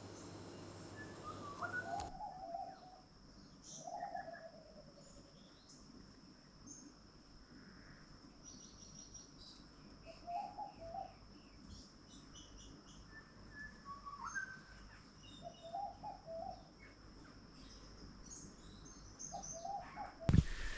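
Several wild birds calling in the morning: short, low warbling calls repeated every few seconds among scattered higher chirps, all faint, over a steady thin high tone.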